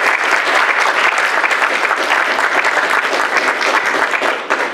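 Audience applauding: many people clapping at once in a dense, steady patter that thins out near the end.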